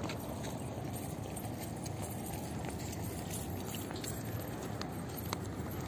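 Steady outdoor noise: a low rumble with a faint hiss above it, and a few faint ticks.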